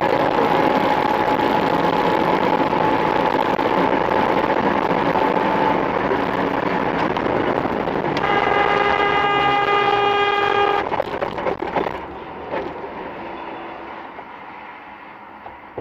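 Loud, steady road and wind noise from a car travelling at speed. About eight seconds in, a vehicle horn sounds one long blast of about two and a half seconds. After about eleven seconds the noise drops sharply and stays lower.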